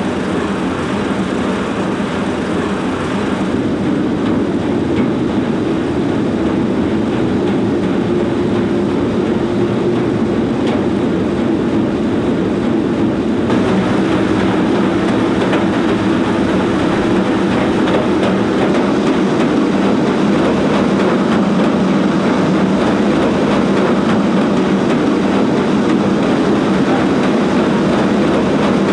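Two Woodway Curve non-motorised treadmills with runners on them, their slatted belts making a steady clatter that grows slightly louder.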